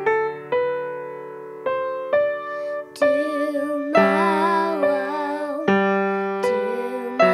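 Grand piano playing chords, with a rising line of notes for the first few seconds. About three seconds in, a young girl's voice begins singing over the piano.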